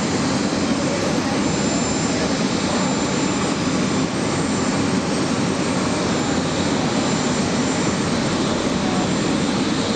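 Aircraft engines running steadily: a continuous, even noise with a faint steady high whine over it, no change in level.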